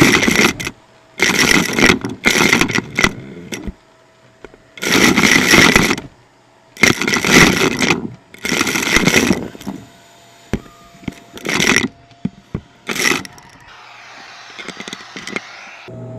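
Vacuum cleaner wand dipped over and over into a plastic bin of buttons, sequins and small trinkets, making bursts of rushing suction with clattering pieces, each about a second long. A faint steady whine runs between the bursts, and near the end there is a softer hiss with a few clicks.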